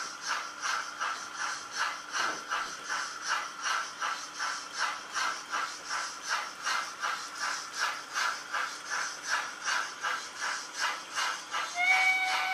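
Model 0m-gauge steam locomotive chuffing steadily, about two and a half chuffs a second, over a faint steady hum. A whistle begins just at the end.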